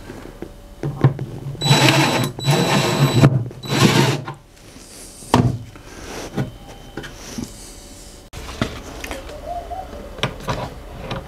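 Cordless drill-driver driving a screw into a concealed cabinet hinge plate, in three short bursts of motor whine about two seconds in; the screw goes into a stripped hole that has been plugged with a glued wooden dowel. Afterwards, light clicks and knocks as the hinge is handled and adjusted.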